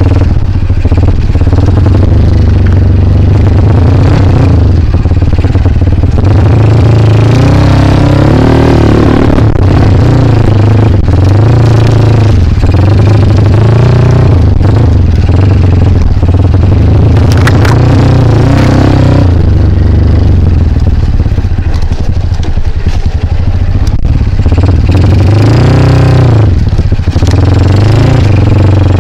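Single-cylinder four-stroke engine of a KLX dirt bike running loud and close, its revs rising and falling over and over as the throttle is opened and closed.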